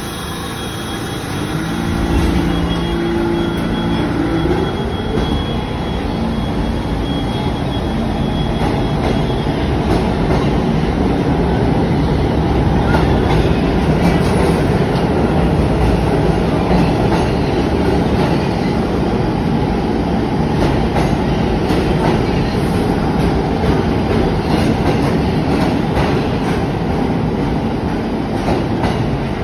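Subway train moving through an underground station: its motors whine upward in pitch a few seconds in, then a loud steady rumble and clatter of wheels on the rails.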